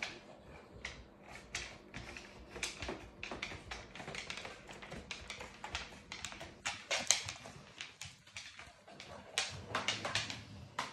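Irregular clicks and taps of a Dogue de Bordeaux's claws and a long chew bone on a wooden parquet floor as the dog walks about carrying the bone, with a brief lull about three-quarters through.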